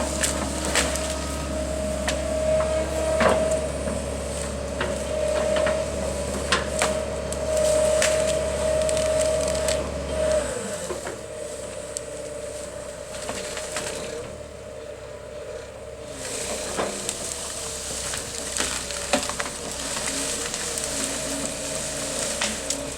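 Wood and branches cracking and snapping irregularly, over a machine's engine running with a steady whine that cuts off about ten seconds in.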